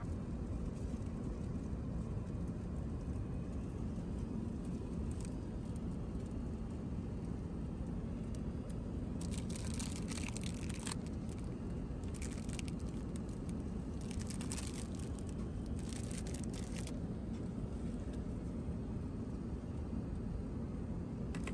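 Steady low rumble of an Airbus A380's passenger cabin in cruise. In the second half, plastic food wrapping crinkles in several short bursts as it is handled.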